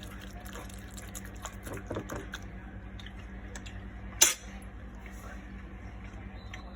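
A spoon scraping and clicking against a bowl of chicken salad, with one sharp knock a little past four seconds in.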